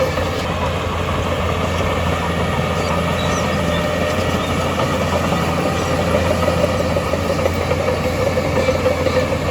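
Heavy diesel earthmoving machinery running steadily, a constant engine drone with no clear changes.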